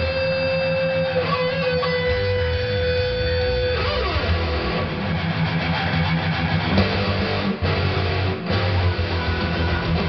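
Electric guitar playing a metal song over a backing track with a rhythmic low part: a long held lead note with a slight waver for the first three and a half seconds, then a slide down in pitch into busy, fast playing.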